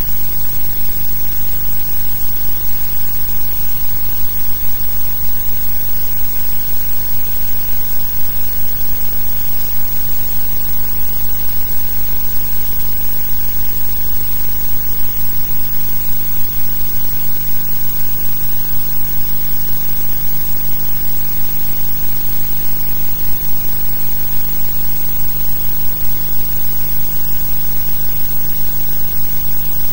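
Blank soundtrack of a silent archive film: a steady hiss with a low hum and no recorded sound, unchanged across the picture cuts.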